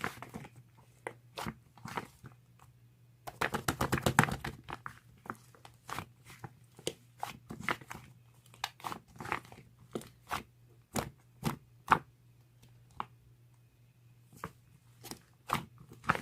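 Fluffy slime being squeezed and poked by hand, with sharp air-bubble pops and clicks. A dense flurry of rapid clicks comes about three to four seconds in, then single pops about one or two a second, over a faint steady low hum.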